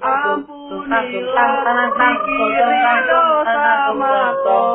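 A voice singing a wavering, wordless melody, part of a looped novelty song remix.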